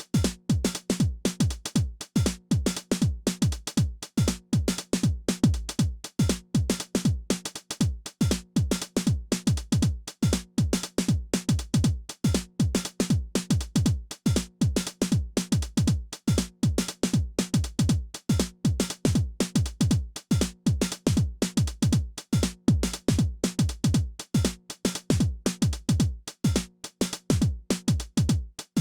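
Behringer RD-9 analog drum machine, a TR-909-style clone, playing a steady electronic pattern: a kick drum that drops in pitch on each hit, about twice a second, under busy hi-hats and percussion.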